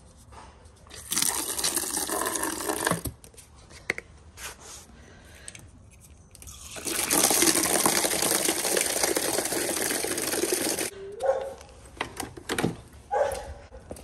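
Water from a garden hose jetting into a plastic bucket: a short spray of about two seconds, then after a pause a longer one of about four seconds that fills the bucket. A few knocks and clatters follow near the end.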